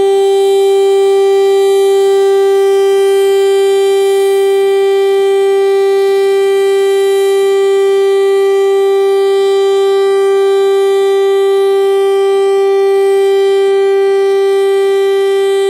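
Federal Signal STL-10A outdoor warning siren sounding a loud, steady tone that holds one pitch, with no rise or fall: the Full Alert test signal.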